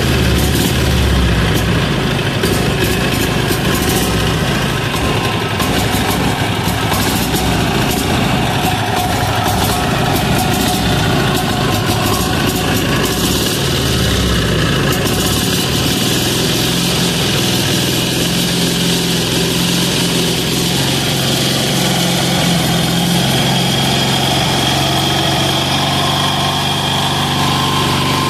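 Single-cylinder air-cooled 186FA diesel engine running continuously, a little uneven in the first half and settling into a steadier beat from about halfway in.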